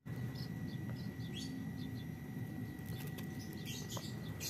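Biola green lovebirds giving short, high chirps, with a flurry of wing-flapping and chirping from about three seconds in as a bird leaves the nest box. A steady low rumble runs underneath.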